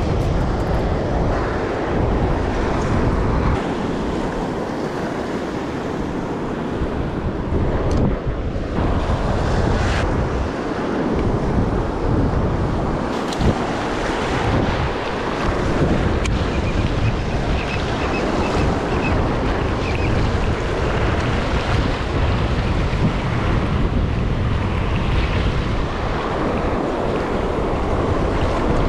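Small surf waves washing up onto the sand at the water's edge, with heavy wind buffeting on the microphone.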